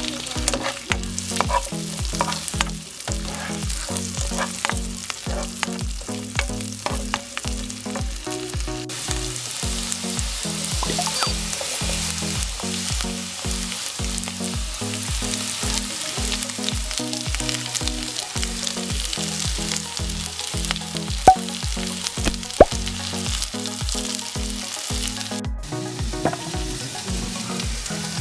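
Strips of cuaresmeño chile, then sliced onion, sizzling as they fry in butter with a little oil in a frying pan, with two sharp taps about three quarters of the way through. Background music with a steady beat runs underneath.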